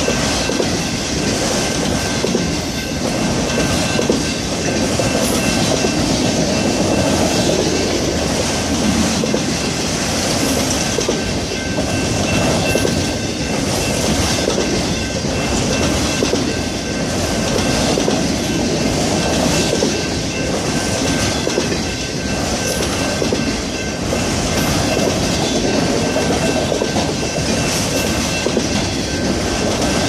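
Autorack freight cars of a long freight train rolling past close by: a steady rumble and rattle of steel wheels on the rail with clickety-clack from the trucks, swelling and easing every couple of seconds as each car goes by. A faint thin high ring runs steadily over it.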